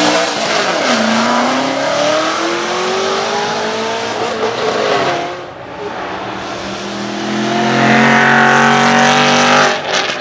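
Aston Martin Vantage AMR Pro's 4.7-litre V8 racing engine, its pitch dipping at first and then climbing steadily as the car accelerates through a gear, fading off around the middle. Near the end a loud, steady engine note holds for about two seconds and stops abruptly.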